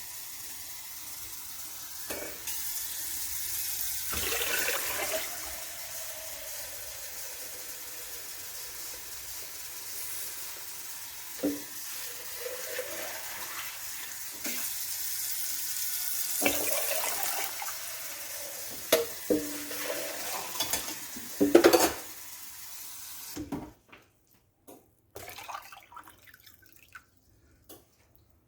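Water running steadily and splashing as a container is filled, with a few knocks of dishes near the end before the water stops.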